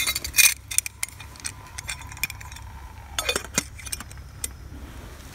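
Metal lid clinking against a steel billy can as it is picked up and set on the pot: a cluster of sharp clinks at the start, a thin ringing tone for a couple of seconds, then another burst of clinks and rattles about three seconds in. A low steady rumble runs underneath.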